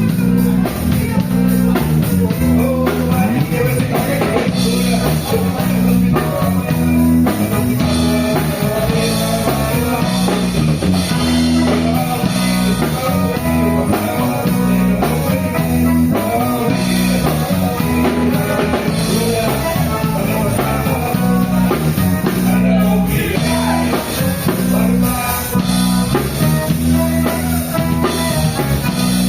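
Band music with drum kit, guitar and a steady bass line, with singing over it.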